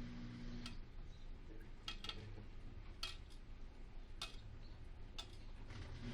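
Samsung WD136 front-load washer-dryer mid-cycle: its steady motor hum stops under a second in, leaving a pause filled with a handful of light clicks about a second apart, and the hum starts again at the very end.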